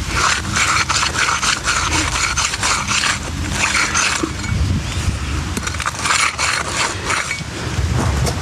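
A hand finishing tool scraping over fresh concrete in two long spells with small clicks, about four seconds, then a shorter one about six seconds in, over a steady low engine rumble.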